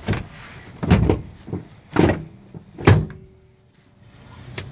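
Third-row seat being tugged against its floor latches to test that it is locked onto the brackets: four heavy knocks about a second apart, then a small click near the end.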